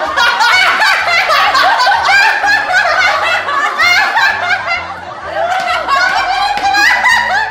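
Several women laughing together at once, in overlapping giggles and chuckles, over quiet background music.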